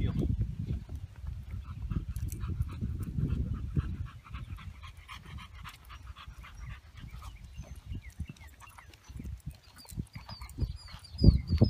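A boxer panting as it walks at heel, with footsteps and a low rumble that is loudest in the first few seconds. High, short bird chirps start near the end.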